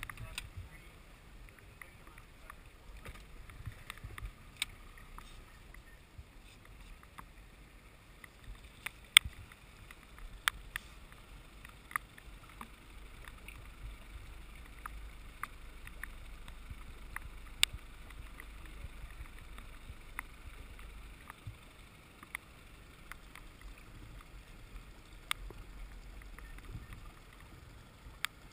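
Low steady rumble of a small aluminium rescue boat with an Evinrude outboard moving slowly through floodwater, with scattered sharp ticks now and then.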